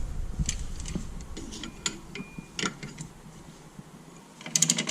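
A ratchet clicking in short, scattered strokes as a brake caliper piston is pushed back, ending in a quick run of clicks near the end.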